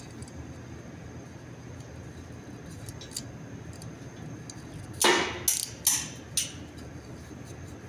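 A new filter and its packaging being handled: a few sharp clicks and rattles come about five to six and a half seconds in, over a steady low background rumble.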